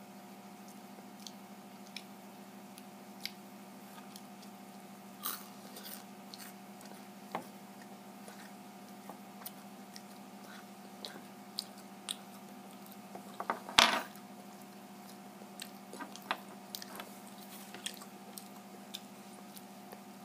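A person chewing and biting food close to the microphone: scattered small crunchy clicks, with a louder burst of crunching about 14 seconds in, over a faint steady hum.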